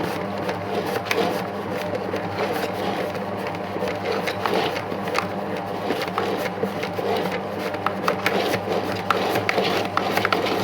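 Homemade electric dough-mixing machine running steadily, its motor humming evenly, with scattered light clicks.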